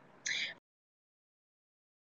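Near silence: a brief faint hiss about a quarter of a second in, then the sound drops out to dead silence.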